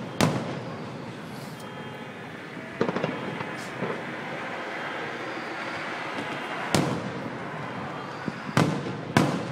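Aerial fireworks shells bursting: about five sharp bangs, the last two close together near the end.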